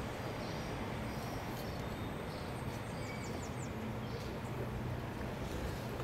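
Steady outdoor background noise with a low hum, and a short run of about four quick, high, falling chirps from a small bird about halfway through.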